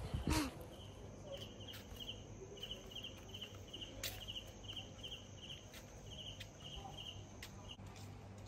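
Cricket chirping: short high chirps repeated about three a second with brief pauses, over a faint steady high whine and a few soft clicks.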